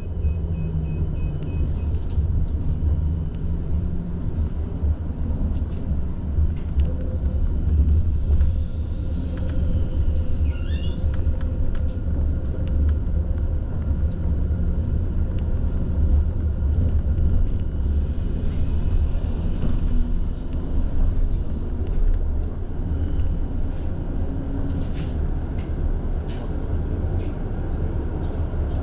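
Steady low rumble of a tram running along its rails, heard from inside the car, with a few faint clicks.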